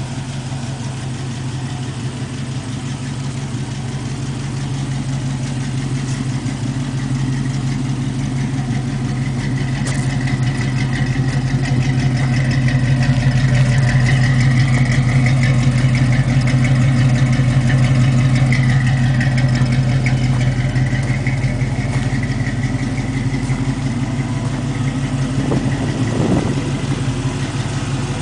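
Ford 351 Windsor V8 idling through headers and Flowmaster 40 mufflers, a steady deep exhaust note that swells somewhat louder through the middle and eases back, with a brief blip near the end.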